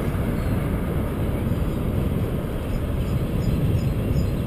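Steady rumbling wind buffeting the microphone of a camera on a bicycle riding at speed.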